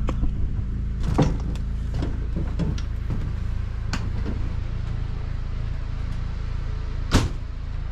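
An engine runs with a steady low hum throughout. Sharp knocks or clacks sound about a second in, around four seconds in, and a louder one near the end.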